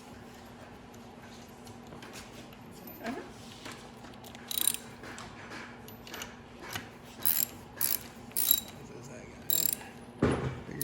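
Socket ratchet clicking in short strokes, several quick bursts from about halfway through, as bolts are run in on a small engine being reassembled. A low steady hum sits underneath, and a heavier clunk comes near the end.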